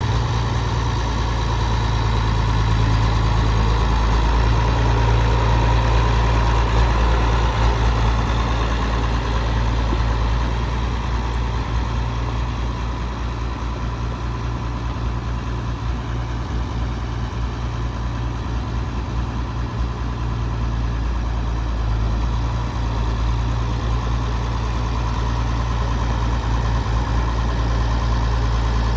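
Oliver 1850 tractor's diesel engine running steadily at low speed as the tractor drives slowly. The sound is a little louder in the first few seconds, eases off through the middle, and rises again near the end.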